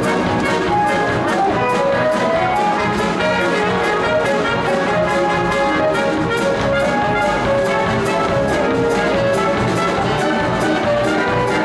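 Up-tempo brass-band music, with trumpets and trombones playing held notes over a steady drum beat and no singing.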